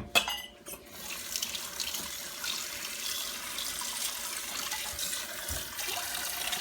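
Water running steadily from a tap into a container to mix soapy water, after a few short clicks in the first second.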